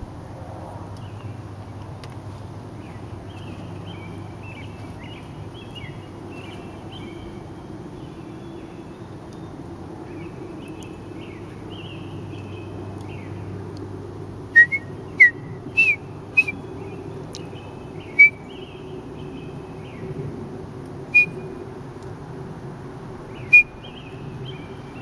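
Bird-like whistled chirps: soft, quick twittering through the first half, then several loud, sharp rising chirps a little past the middle and two more near the end.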